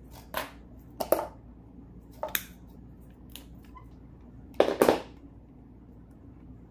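Hands working cord and tools: a handful of short scraping, rustling handling noises, the loudest a double one about four and a half seconds in.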